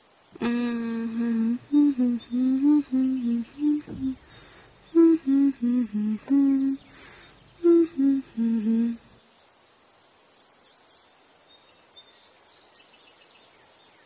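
A person humming a slow melody in held notes for about nine seconds, then stopping, leaving faint room tone.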